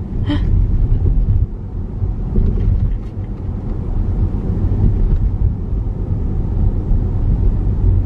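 Steady low road and tyre rumble inside a Tesla's cabin while it drives along a town street.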